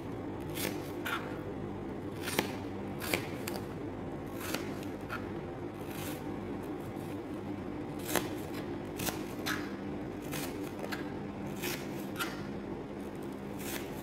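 Kitchen knife slicing watermelon rind on a plastic cutting board: about twenty short, irregularly spaced cuts and taps of the blade, over a steady low hum.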